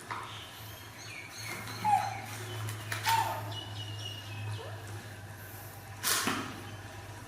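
Young monkey giving two short high cries that fall in pitch, about two and three seconds in, then a sharp slap or knock about six seconds in.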